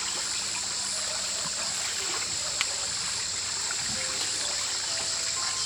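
Steady high-pitched outdoor hiss, with a few faint, soft music notes over it.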